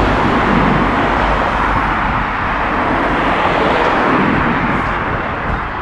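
Street traffic: cars passing, a steady rushing noise with low rumble that swells in the middle and eases near the end.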